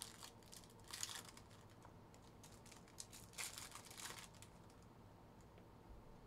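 Foil trading-card pack wrappers crinkling and tearing as they are opened by hand. The sound comes in faint short bursts, about a second in and again from about three to four seconds.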